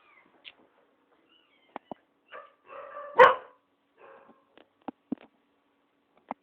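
A dog barks once, loudly, about three seconds in, with a brief whine leading into it and a few faint yelps around it. A handful of sharp little clicks fall between them.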